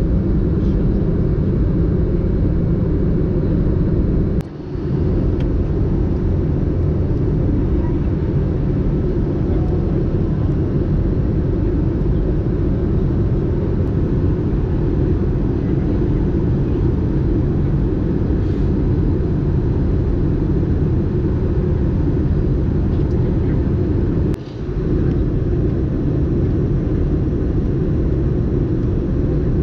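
Steady, loud low rumble of engine and airflow noise inside the cabin of an Airbus A320-214 with CFM56 turbofans, in flight on the descent. The level briefly dips twice, once about four seconds in and again near the end.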